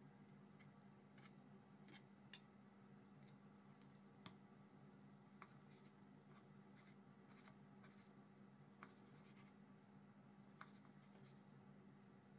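Near silence: a faint steady hum with a few scattered faint clicks.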